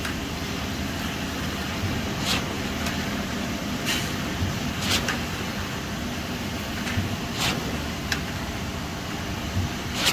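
An engine runs steadily under a noisy hum, with a short sharp click or scrape every second or two.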